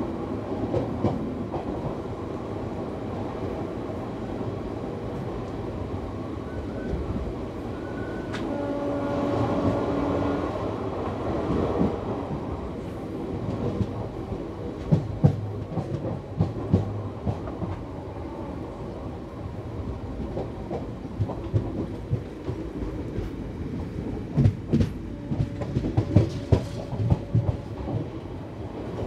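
Passenger train coach running at speed: a steady rumble of wheels on track, with quick runs of clicks as the wheels pass over rail joints, loudest about fifteen and again about twenty-five seconds in. A brief steady tone sounds about nine seconds in.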